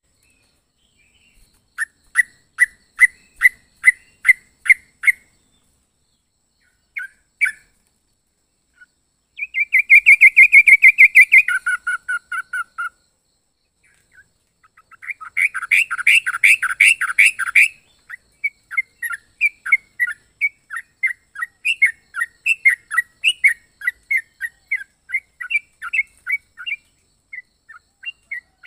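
Yellow-vented bulbul (trucuk) singing: a run of short, evenly spaced chirps, then a loud rapid trill about ten seconds in, a dense burst of quick notes a few seconds later, and steady runs of quick chirps after that.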